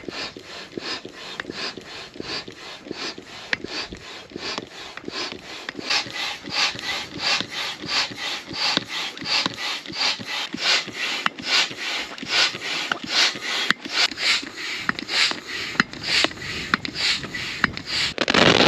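Hand-operated barrel pump inflating an inflatable tent's air beams through a hose: a rush of air with each quick, even stroke, about three a second. It grows louder a few seconds in.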